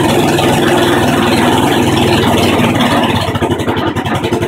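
Lawnmower engine driving a 12-volt alternator, bogging down under a 100-amp load on the battery bank. About three seconds in, its steady running breaks into slower, uneven firing as it lugs toward stalling.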